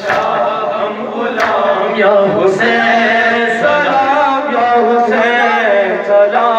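Two male voices chanting an Urdu noha, a Shia mourning lament, through microphones, with a sharp slap of chest-beating (matam) about every second or so.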